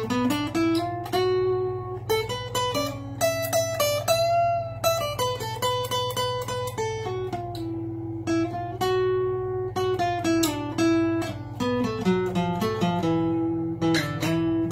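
Acoustic guitar played fingerstyle in a blues style: picked single notes and chords over a bass line, with one note bent upward about four seconds in. A steady low hum sits underneath.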